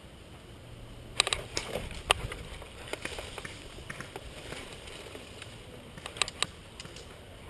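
Airsoft guns firing short bursts of sharp clicks: a quick burst about a second in, a single shot near two seconds, and another burst of three around six seconds, with scattered fainter ticks between.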